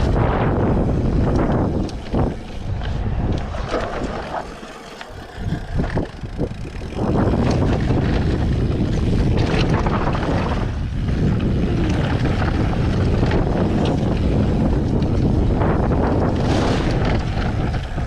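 Wind buffeting the microphone of a camera riding on an electric mountain bike descending a dirt trail, mixed with tyre and trail rumble. The rush eases for a few seconds about four seconds in, with a few sharp knocks, then picks up steady and loud again.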